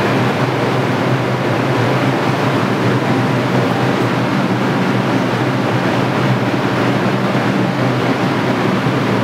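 R142-series New York subway train standing at the platform with its doors open, its onboard equipment running with a steady loud hum and rushing noise.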